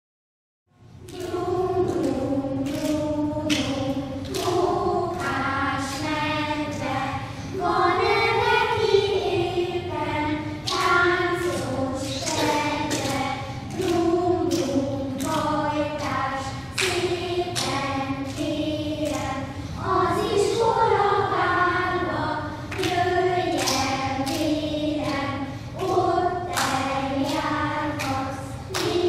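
A class of young children singing a children's song together, starting about a second in, with regular sharp beats keeping time about every half second.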